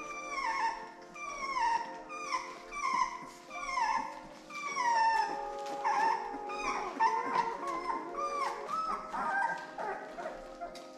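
Two-week-old pit bull puppy crying while it is handled: a run of short, high whining cries, each falling in pitch, about one to two a second. Steady background music plays beneath.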